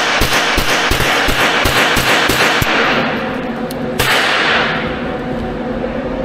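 Gunshots in an indoor shooting range: rapid single shots about three a second for nearly three seconds, then one more shot about four seconds in, each ringing off the range's walls.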